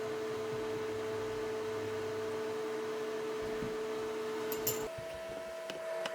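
Household exhaust fan running with a steady hum. Near the end a couple of clicks sound, and the hum steps up to a higher pitch, followed by faint ticks.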